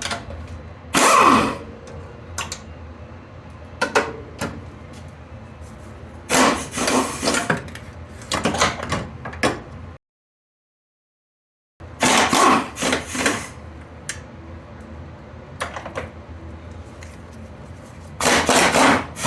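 Irregular scrapes and sharp metallic knocks of hand tools and loose metal suspension parts being handled, in two short stretches.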